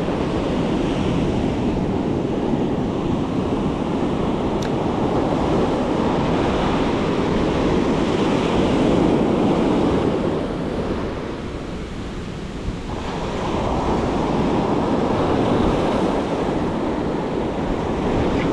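Ocean surf breaking and washing up a sandy beach, with wind buffeting the microphone. The wash eases for a couple of seconds about two-thirds of the way through, then builds again.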